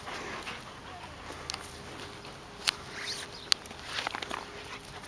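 Footsteps and rustling on grass, broken by two sharp clicks about two and a half and three and a half seconds in, and a run of small ticks soon after.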